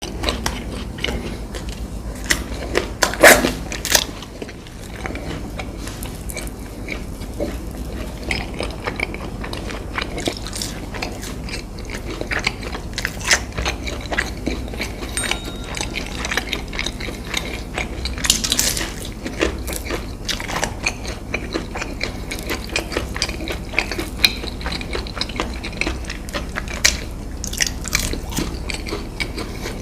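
Close-miked eating: crisp bites and crunching chewing of fried fast food, with a few louder crunches, over a steady low hum.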